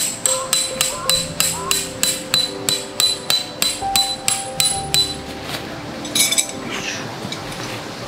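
A hammer drives a metal tent peg into the ground in rapid strikes, about four a second, each with a metallic clink. The strikes stop about five and a half seconds in, followed by a brief cluster of taps just after six.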